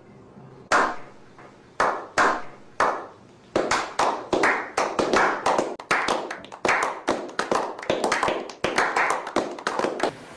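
Hand clapping: a few slow, spaced claps that speed up about a third of the way in into fast, continuous applause.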